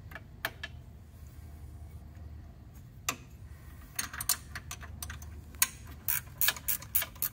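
Ratcheting wrench clicking as it loosens a hard-to-reach aftercooler bolt: a few scattered clicks, then from about four seconds in a quick run of clicks, several a second.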